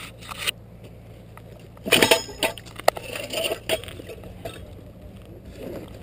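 Handling noise of a GoPro camera in its plastic housing being gripped and set on its mount: scrapes and sharp clicks, with a loud rustling clatter about two seconds in, over a faint steady low hum.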